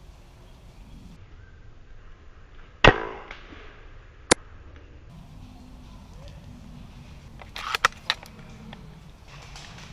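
An airsoft sniper rifle fires one shot with a sharp crack and short tail about three seconds in. A single sharp click follows about a second and a half later, and a quick run of clicks comes near the end.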